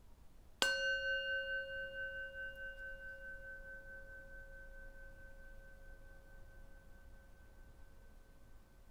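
Tibetan singing bowl struck once with a wooden mallet about half a second in, then ringing with a low tone and a higher overtone that slowly fade, pulsing slightly as they die away.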